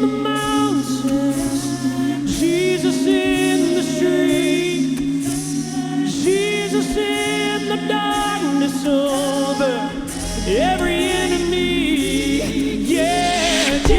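Gospel vocal group singing in close harmony: several held, wavering voices over a low bass line, with a deeper low sound coming in about ten seconds in.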